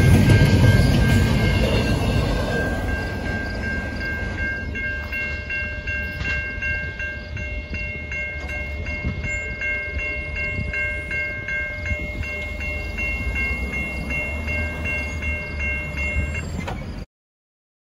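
The last cars of a double-stack intermodal freight train run past with a rumble that fades over the first few seconds. Level-crossing warning bells keep ringing in a steady, rapid ding until the sound cuts off suddenly near the end.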